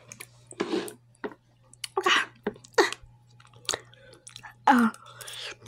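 Open-mouthed chewing close to the microphone: a run of short, wet smacks about once a second.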